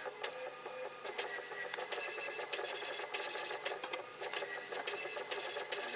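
HP Envy Photo 6234 inkjet printer printing its calibration page: the print mechanism runs steadily with frequent sharp clicks as the sheet feeds out.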